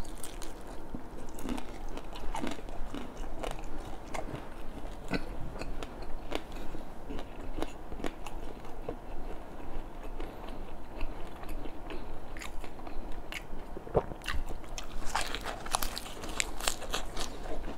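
Person eating crispy fried red tilapia: steady chewing with small crunches and clicks, and a run of louder crunches near the end as a lettuce leaf is bitten.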